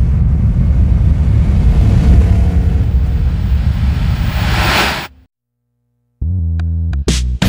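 Logo-intro sound effect: a deep rumble with a whoosh swelling toward a peak, which cuts off abruptly about five seconds in. After about a second of silence, electric guitar music starts.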